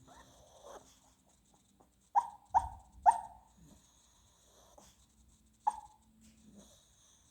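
Sleeping dog dreaming, letting out short yips in its sleep: three quick ones close together a couple of seconds in and one more later, after a soft breath at the start.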